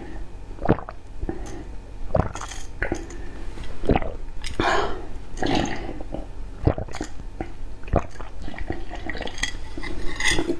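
Matcha ice being chewed: irregular crunches of ice breaking between the teeth, mixed with wet mouth sounds of the melting ice.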